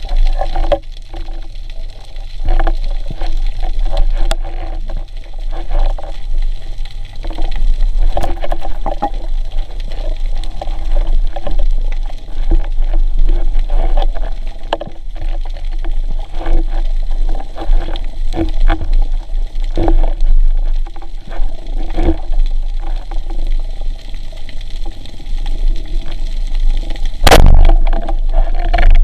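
Water sound heard on a diver's camera: a constant low rumble with a steady drone and many scattered clicks and crackles, and one loud sharp hit near the end.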